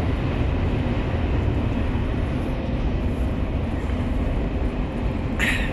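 Steady rumble and running noise of a double-decker TGV high-speed train in motion, heard inside the carriage. A brief, higher-pitched sound comes just before the end.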